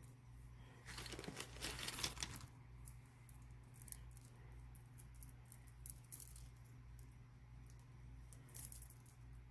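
Strands of glass and stone beads and pearls clicking and rattling against each other and the table as they are handled and laid down. There is a dense run of clicks from about one to two and a half seconds in, then a few scattered clicks over a faint low steady hum.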